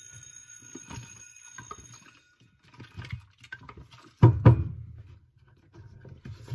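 Plastic film developing tank being handled and tipped over to agitate the developer: scattered small knocks of plastic and hands, then one heavy thump a little after four seconds in as the tank comes back down on the table. Faint high steady tones sound for about the first two seconds.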